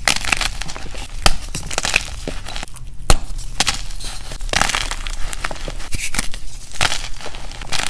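Dyed gym chalk blocks snapped and crushed by hand: dry, crisp crunching and crumbling, with sharp cracks about a second in and again about three seconds in.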